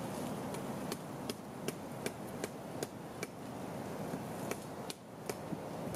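A tarp stake being tapped into the ground: a run of light, sharp knocks, about two to three a second, with a short pause past the middle.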